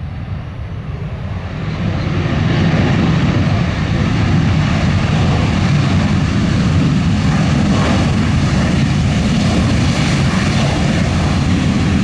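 Southwest Boeing 737 jet engines at takeoff thrust: a loud, steady roar that builds up about two seconds in and holds as the airliner rolls down the runway.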